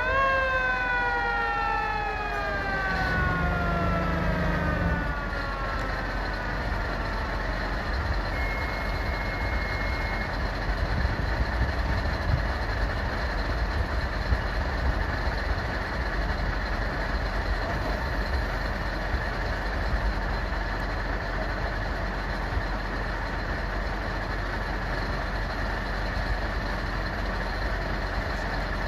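Fire engine siren giving a short wail in a siren test: the pitch shoots up and then winds down slowly over about six seconds. After it, steady vehicle engine noise runs on.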